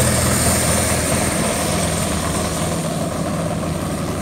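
Gas engine of a large radio-controlled aerobatic plane idling steadily, turning its propeller, with a steady high whine above it.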